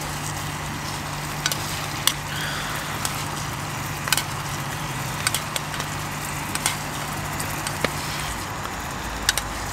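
Steak frying in a pan on a camp stove: a steady sizzle with scattered spitting pops, the steak drawing the heat out of the pan.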